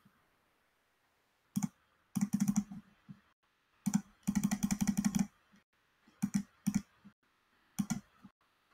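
Computer keyboard typing and clicking in several short bursts of rapid keystrokes, with dead silence between the bursts.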